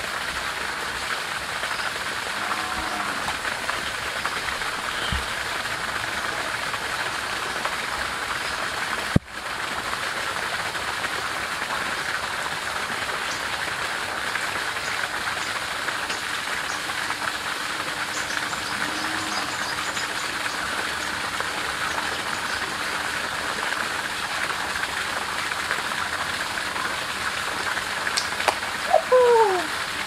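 Two jets of water gushing from pipe outlets and splashing onto leaf litter and plants: a steady splashing hiss, with one sharp click about nine seconds in.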